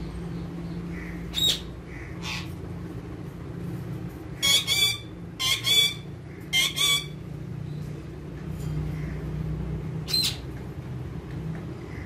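Parakeets squawking: two short harsh calls early, then six loud calls in three quick pairs around the middle, and one more call near the end. A steady low hum runs underneath.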